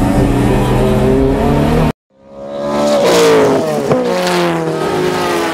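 Onboard sound of a Nissan S14 Silvia race car's engine running hard at fairly steady revs, which cuts off abruptly about two seconds in. After a brief silence a second race-car engine sound fades in, revving with pitch that glides down, with a sharp click partway through.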